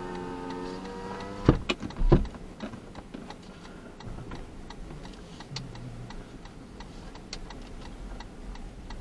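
Car's electric power window motor whining as a window winds up, stopping with a thump about a second and a half in, followed by a second thump. Then a turn-signal indicator ticks over the faint idle of the stationary car.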